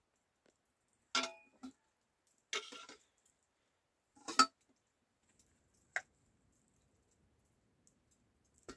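A serving ladle knocking and scraping against a metal pot and a steel plate as cooked maize porridge is scooped out and served: about six separate clacks at uneven intervals, the loudest about four and a half seconds in.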